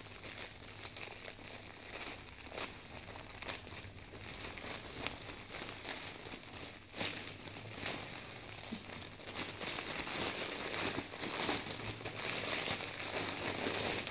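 A plastic courier mailer bag crinkling and rustling as it is handled and pulled open by hand, with sharp crackles of the plastic; it grows louder and busier in the last few seconds.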